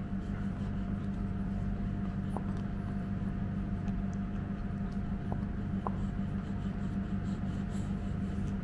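A steady low hum with a faint higher tone under it, with a few faint soft clicks from a Great Pyrenees puppy chewing a plush toy.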